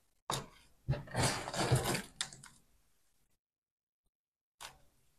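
Gritty potting mix (succulent and universal mix) crackling and rattling as it is pressed down by hand around a plant in a small plastic pot. The sound comes as a dense burst of about a second and a half, followed by one faint click near the end.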